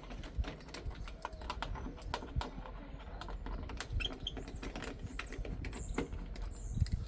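Irregular light clicks and knocks of plastic parts being handled as a dishwasher's push-button control panel is worked loose.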